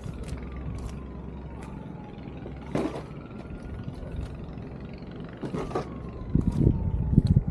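Emergency vehicle siren wailing, its pitch slowly falling and rising, over a steady rumble of street traffic. A louder, rougher vehicle rumble builds near the end.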